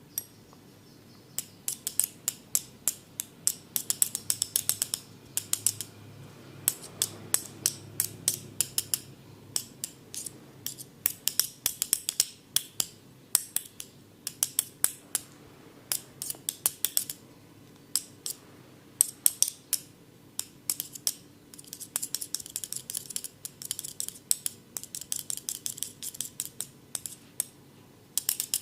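Rapid, crisp clicks in quick runs, several a second with short pauses between runs, made by a barber's hand tool worked close to the microphone during an ASMR ear massage.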